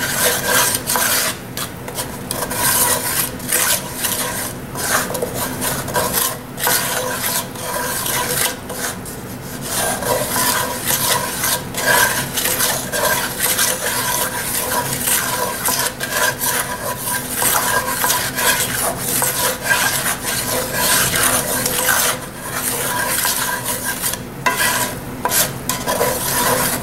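Wooden slotted spatula stirring and scraping a flour-and-oil roux around a cast-iron skillet, working the browned bits off the bottom of the pan as the flour cooks. The scraping is continuous and even.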